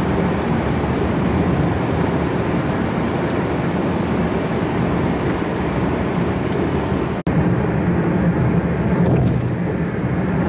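Steady engine and tyre noise inside a moving car's cabin. It breaks off for an instant about seven seconds in and resumes at the same level.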